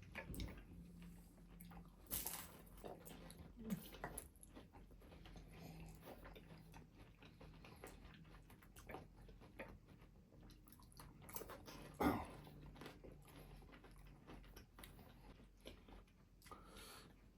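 Close-up eating sounds: biting and chewing food, with many small wet mouth clicks. There is a louder bite about two seconds in and another about twelve seconds in.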